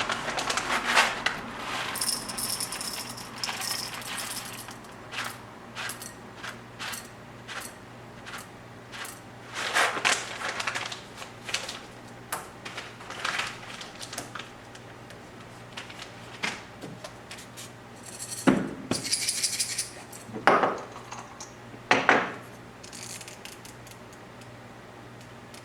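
Kitchen items and coffee gear being handled: scattered clinks, light knocks and short rattles, with quiet room tone between.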